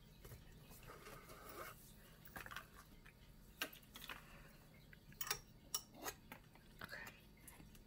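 Faint, scattered ticks and dabs of a palette knife working acrylic paint onto a canvas, a handful of them, mostly in the second half.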